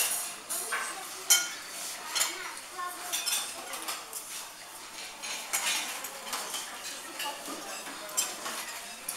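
Forks and knives clinking and scraping on plates as people eat, in irregular clinks, the sharpest about a second in.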